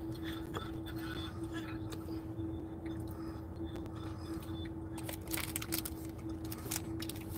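Steady hum of a parked car idling, heard from inside the cabin, with a constant droning tone over a low rumble. A few faint clicks and ticks come about five to six seconds in.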